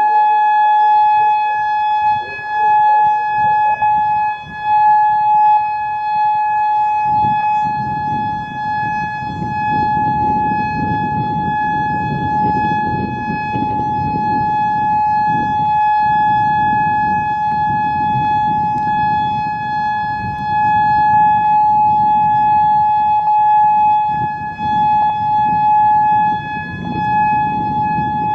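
Whelen WPS-3000 electronic tornado siren sounding its single-tone steady alert, one unbroken tone that swells and dips in loudness as the rotating head turns. Occasional faint pops come through from its aging UV controller. A low rumbling noise sits underneath from about seven seconds in.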